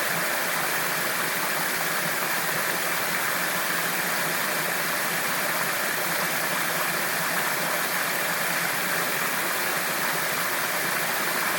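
Water rushing steadily through a small irrigation sluice gate, an even, unbroken hiss of flowing water.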